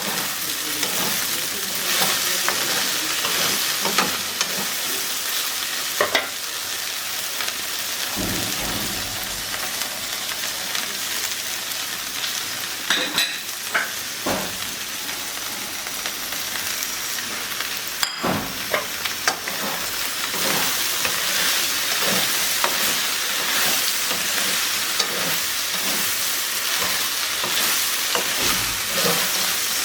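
Oil sizzling steadily in a pan as food fries, with a spatula stirring and scraping against the pan in scattered clicks and knocks.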